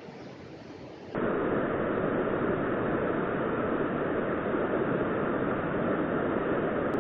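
Steady rush of a fast-flowing river, an even noise without pitch or rhythm that jumps much louder about a second in.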